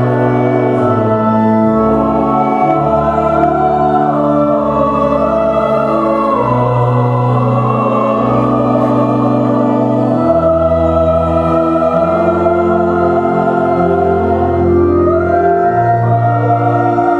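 Mixed choir singing a slow Indonesian hymn with pipe-organ-style accompaniment, sustained low chords under the voices that change every second or two.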